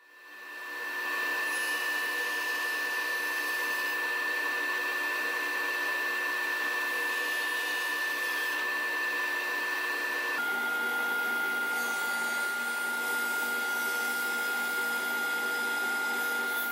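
Table saw running, a steady motor whine over an even rushing noise; about ten seconds in the whine drops abruptly to a slightly lower steady pitch.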